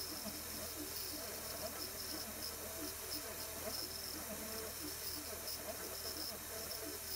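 DIY epoxy-granite CNC mill running a cut in aluminium plate with an end mill: a motor whine that rises and falls in pitch about once a second, over a steady high-pitched whine and hiss.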